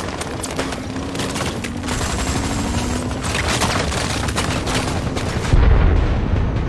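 Film-soundtrack firefight: rapid, overlapping bursts of automatic gunfire, with a heavy low boom about five and a half seconds in.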